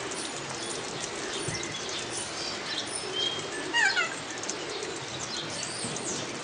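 A kea calls once about four seconds in, a loud cat-like cry falling in pitch. A few short, high squeaks come before it over a steady background hiss.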